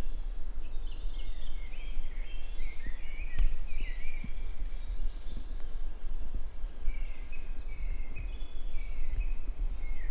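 Small songbirds chirping and twittering in short, repeated high calls over a steady low wind rumble on the microphone.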